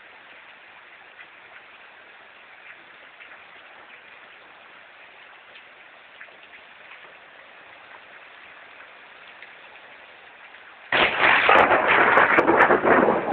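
Steady rain pattering, with scattered small drop ticks. About eleven seconds in, a sudden loud crashing burst takes over for a couple of seconds.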